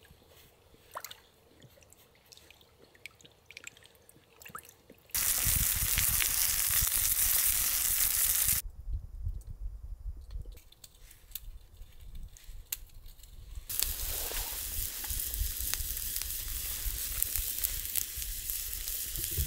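Rain, in a series of abruptly changing stretches: scattered drips at first, a few seconds of loud heavy rain from about five seconds in, then a quieter lull, then steady rain with dense patter and drips.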